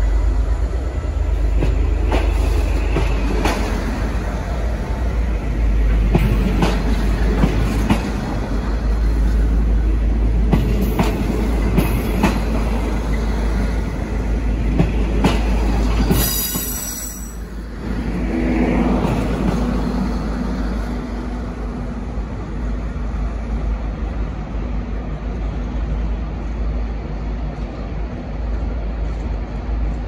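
Locomotive-hauled passenger carriages rolling slowly past with a heavy low rumble and repeated wheel clicks over rail joints and points. There is a brief hiss about sixteen seconds in, and then the rumble eases off as the train pulls away.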